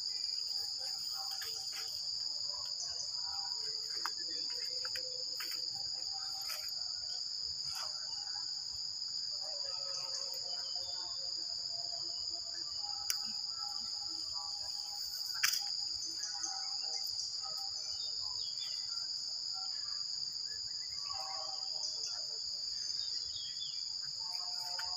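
Insect chorus: a continuous shrill, high-pitched drone in two steady pitches, with scattered faint clicks and short chirps underneath.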